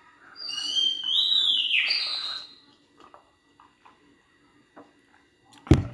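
A bird's high call of about two seconds that slides upward in pitch, followed near the end by a few sharp clicks.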